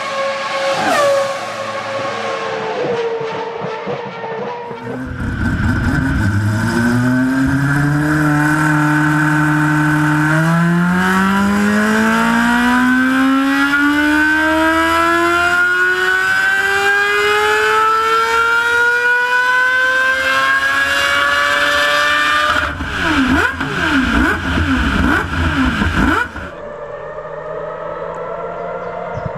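High-performance car engine at full throttle. The note first drops away, then the engine pulls hard with its pitch holding and then climbing steadily for about twelve seconds. A few quick up-and-down revs follow before the sound cuts off abruptly.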